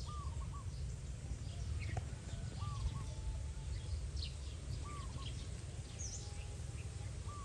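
Birds chirping and calling: short arched calls repeat about every two and a half seconds among quick high chirps, over a steady low rumble.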